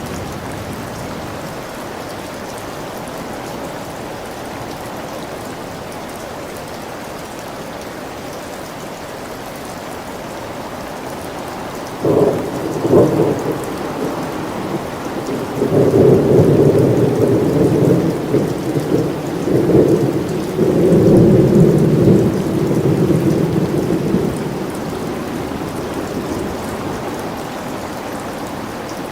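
Steady rain falling, with a sudden crack of thunder about twelve seconds in. It is followed by loud rolling thunder rumbling for several seconds before it eases back into the rain.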